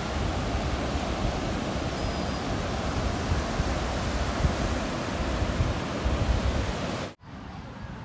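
Sea surf breaking on a sandy beach, with strong wind buffeting the microphone in gusty low rumbles. It cuts off abruptly near the end, leaving a much quieter background.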